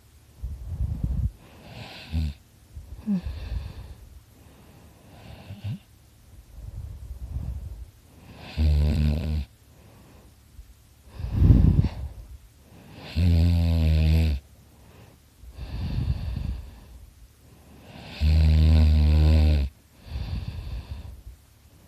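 A sleeping man snoring loudly: a run of breaths, softer and rasping at first, then three loud buzzing snores about five seconds apart, each lasting a second or more.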